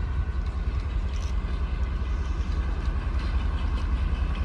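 Diesel locomotive engine running steadily in the distance, with a constant low drone.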